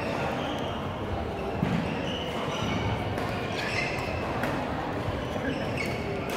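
Badminton rally on a hardwood gym court: a racket strikes the shuttlecock about one and a half seconds in, with sneakers squeaking briefly and feet moving on the floor. Background chatter carries through the hall's echo.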